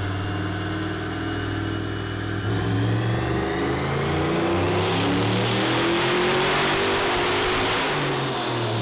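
Turbocharged LS V8 of a 2002 Chevy Tahoe running under load on a chassis dyno: a steady engine note at first, then a pull with the pitch rising and a high turbo whistle climbing with it, a rush of noise building, then easing off near the end.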